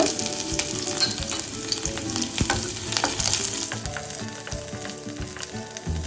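Onion, garlic and chillies frying in hot coconut oil in a kadai, sizzling steadily with many small crackles as they are sautéed for a rasam tempering.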